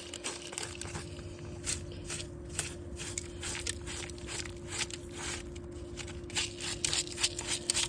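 Irregular crunching and scraping in spilled wheat, short uneven strokes, over a steady low hum.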